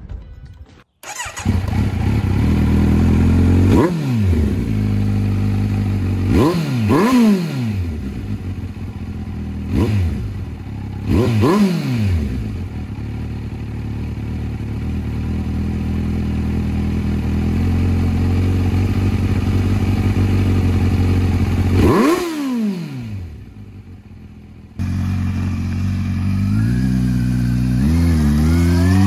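Kawasaki Z900's inline-four engine running through an Arrow Pro Race titanium slip-on exhaust with its dB killer removed. It idles, with about six sharp throttle blips that rise and fall back. After a brief lull near the end, the bike pulls away with rising revs.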